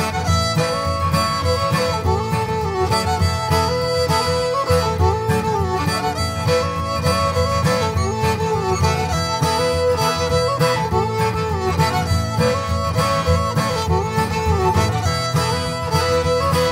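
Cajun band music: a fiddle carries the melody with sliding, bending notes over guitar accompaniment and a steady beat.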